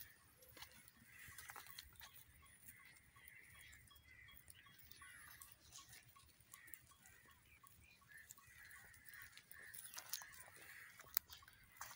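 Faint outdoor ambience around a grazing flock of sheep and goats: scattered soft clicks and rustles, with faint bird calls and one sharper click near the end.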